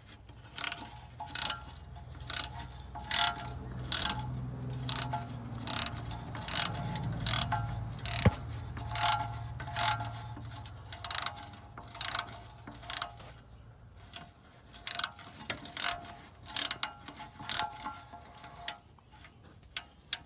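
Hand ratchet clicking in short, irregular strokes as the bolts of a new oil pump pickup tube are run in and tightened.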